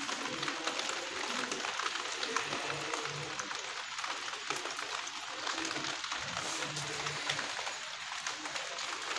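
Rain falling steadily on a wet concrete rooftop, a continuous hiss dotted with many small drop ticks.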